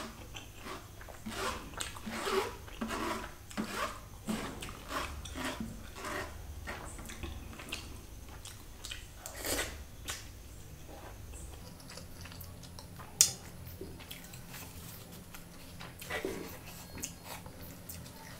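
Close-miked chewing of chicken biryani eaten by hand, with wet mouth sounds and smacking in a quick irregular run through the first half and more sparsely after. A single sharp click comes about thirteen seconds in, the loudest sound here.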